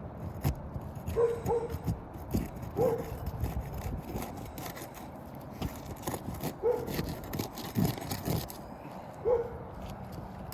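A dog barking about five times, short single barks spaced a few seconds apart, over the scraping and clicking of asphalt shingles being worked loose with a roofing snake.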